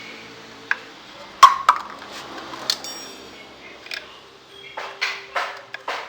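Metal parts or tools clinking and clanking, a handful of sharp separate clinks with the loudest about a second and a half in, and a few short scraping strokes near the end. An engine tone fades out during the first second.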